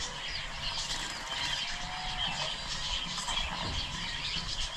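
Outdoor farmyard ambience of small birds chirping steadily, with one faint drawn-out call a little under two seconds in.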